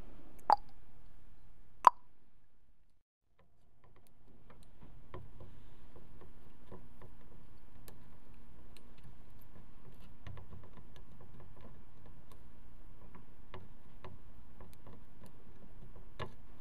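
Two sharp clicks near the start as a part is pushed into a printed circuit board. After a short fade to silence, soldering on the board's underside follows: faint light ticks of the soldering-iron tip and solder wire on the joints over a steady low hum.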